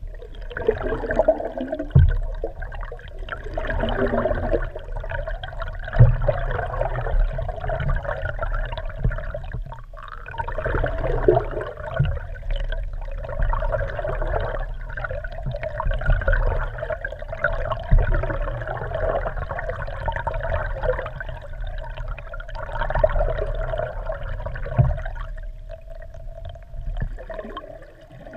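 Water rushing and gurgling past a GoPro's waterproof housing mounted underwater beneath a moving kayak, muffled, with a steady hum underneath and a few sharp low knocks every several seconds.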